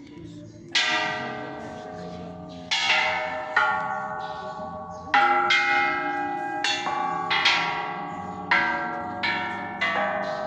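Buddhist temple bells struck one after another: about ten strikes at uneven intervals, each ringing at its own pitch and still sounding as the next is struck.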